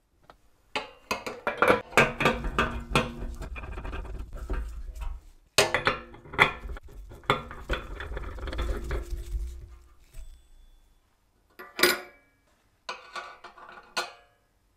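Brass and steel parts of a 1938 Tito Landi gasoline cooking stove clinking and clattering as they are handled and fitted back together. A dense run of knocks and scrapes with short metallic ringing is followed by one sharp knock and a few separate clinks near the end.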